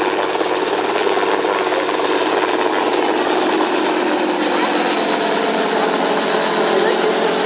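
Helicopter running steadily: a constant engine and rotor drone with a steady whine, no change in pitch or level.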